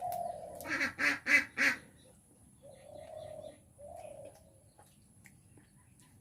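Birds calling: a short held call, then a run of four loud quack-like calls about a second in, followed by two quieter drawn-out calls around three and four seconds in.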